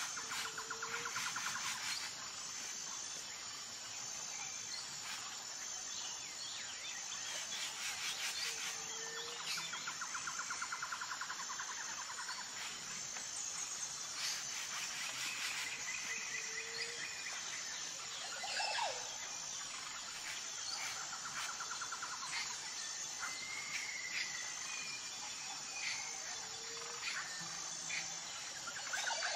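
Birds chirping over a steady, high insect-like buzz, with pulsed trills and a short low call that repeats about every eight seconds.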